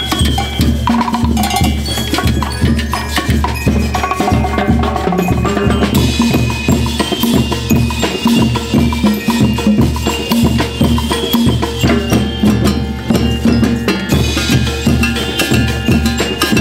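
School rhythmic band (banda rítmica) playing: drums and percussion keep a steady, driving beat under a sustained melody.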